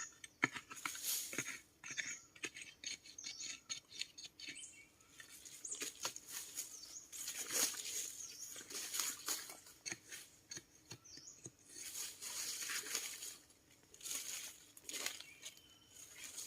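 Dry forest floor litter rustling and crackling, with many quick clicks in the first few seconds and longer scrapes and rustles later.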